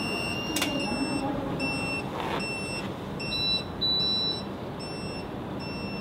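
Electronic beeping: one long steady beep that stops about a second in, then short beeps repeating about twice a second, two of them in the middle longer and higher-pitched.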